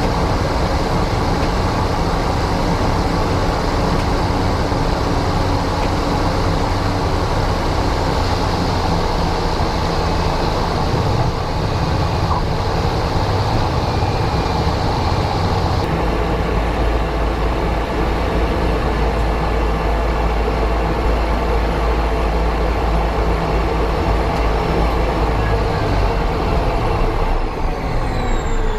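Steady vehicle engine drone heard from inside the cabin. About halfway through, the deep hum shifts to a different, lower pitch.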